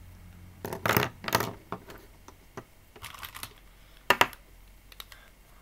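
Plastic marker pens clicking and clattering as they are handled and set down on a desk: irregular sharp clicks, the loudest about a second in and a quick pair about four seconds in.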